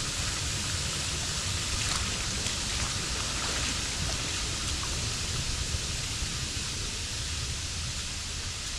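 Waterfall: steady rushing of falling water, an even, unbroken hiss.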